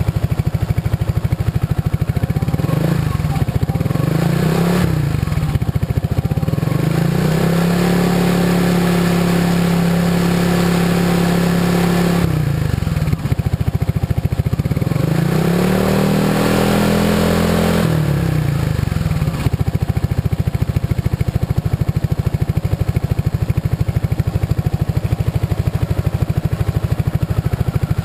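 Honda SH300 scooter's single-cylinder four-stroke engine running through an Arrow Reflex 2 aftermarket exhaust. It idles, is blipped once about three seconds in, then held at higher revs for about four seconds. It is revved up and down again around the middle and settles back to idle for the last third.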